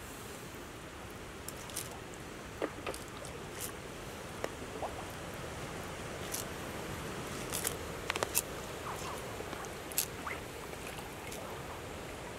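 Steady outdoor background hiss by the water's edge, with a scattering of small sharp clicks and ticks, a few bunched together about two to three seconds in and again around eight seconds.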